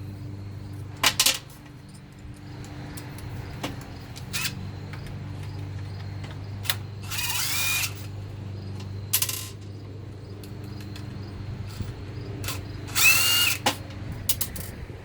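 Power screwdriver running in two short bursts, about seven and thirteen seconds in, with clicks and knocks of small parts being handled between them.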